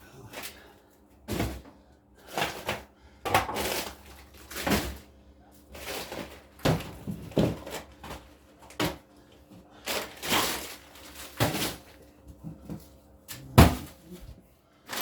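Irregular clunks, knocks and rustling as frozen food packages and freezer parts are handled and moved, with one sharp, loud thud near the end.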